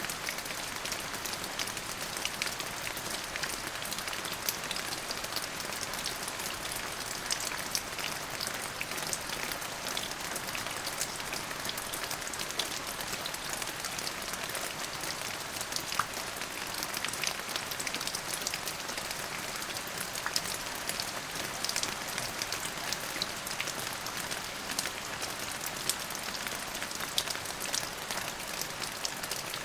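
Steady rain falling, with a constant hiss and many distinct drops pattering on a surface.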